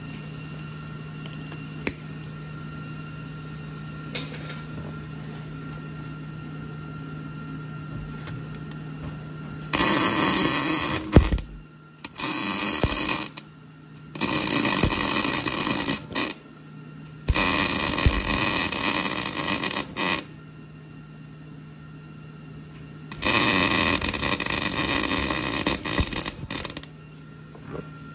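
Electric welder laying a series of short beads: five bursts of arc noise, each one to three seconds long, starting about ten seconds in, with a steady low hum between them. The weld is running over dirt in the joint.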